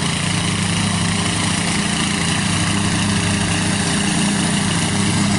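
Old Murray riding lawn mower's engine running steadily at an even speed.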